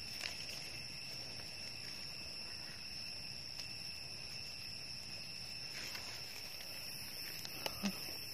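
Steady chorus of forest insects, a continuous high buzzing on two pitches. A few soft clicks and rustles from handling in the leaf litter come just after the start and again near the end.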